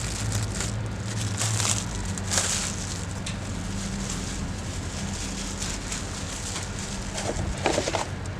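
Scattered crackles and clicks, a few in the first seconds and a cluster near the end, over a steady low hum.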